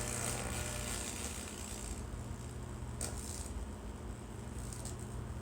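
Lichtenberg wood-burning machine's high-voltage transformer humming steadily, with an electrical sizzle from the arc on the wet wood that fades about two seconds in and a short crackle about three seconds in. The burn is struggling to take hold.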